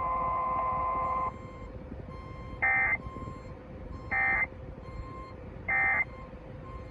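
Emergency Alert System end-of-message code: three short, identical bursts of warbling data tones about a second and a half apart, marking the close of the alert. They come through an AM car radio, over a faint steady whine. Before them, for about the first second, a steady tone-laden hiss cuts off.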